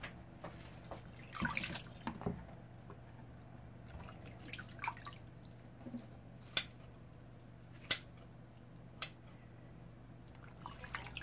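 Small kitchen sounds while cooking: scattered sharp clicks and drips of water, about half a dozen spaced a second or more apart, over a steady low hum.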